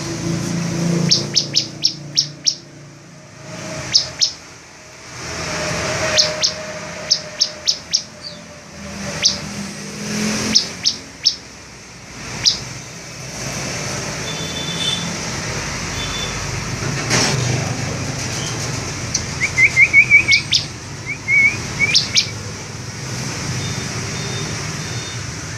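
Ciblek (bar-winged prinia) calling: short, sharp, high chirps, often in quick clusters of two to five. Past the middle comes a faster run of lower, trilled notes.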